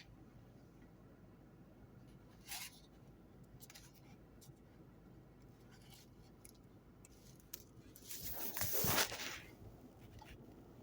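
Handling noise from a new camcorder and its packaging: faint rustling and a few small clicks, with a louder rustle lasting about a second and a half near the end.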